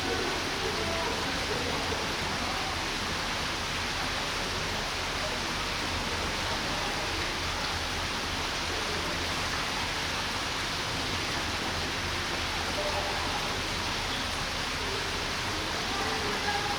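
Steady, even hiss of background noise with faint murmur of distant voices.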